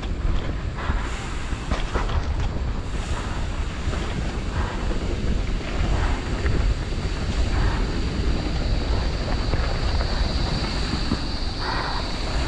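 Wind buffeting a helmet-mounted camera's microphone as a downhill mountain bike descends a dirt singletrack, with a steady low rumble and small clicks and rattles from the tyres and bike over the rough ground.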